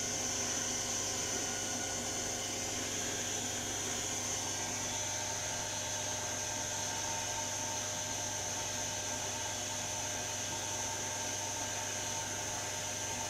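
Zanussi WD15 washing machine running with a steady whirring hum that does not change in pitch.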